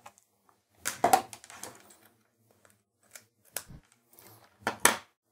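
Scattered light clicks and rustles of a USB mouse cable and plug being handled and pushed into a Raspberry Pi 3's USB port, with the sharpest clicks about a second in and near the end.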